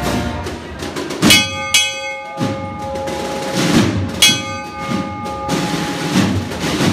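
A hand bell on a Holy Week procession throne is struck about a second in and again about three seconds later, each strike ringing on for about a second. This is the kind of bell signal used to cue the throne bearers. Under it, the marching band's drums keep beating.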